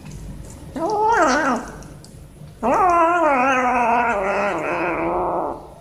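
Tabby kitten growling with food in its mouth, guarding its meal: a short growl that rises and falls about a second in, then a long, wavering growl of about three seconds.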